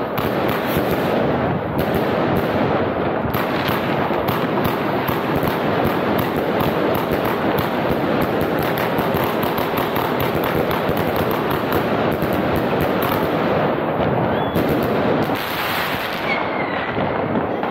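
Fireworks fired from the street, most likely a single firework battery sending up shots that burst overhead. It makes a dense, continuous crackle of bangs and pops, which thins out a little near the end.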